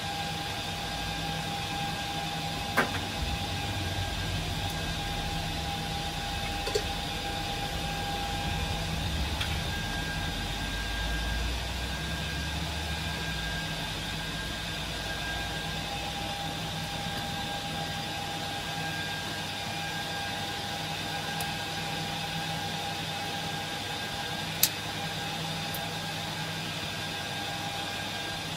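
Cooling fans of an HP ProLiant DL380p G8 rack server running steadily, a rushing noise with a steady whine in it. Three short sharp clicks cut through, the loudest near the end.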